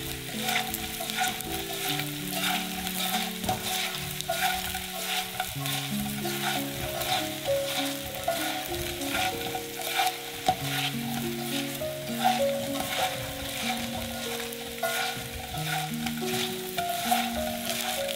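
Food frying and sizzling in a pan while being stirred, with frequent short scrapes and taps of the utensil against the pan. Soft background music plays underneath.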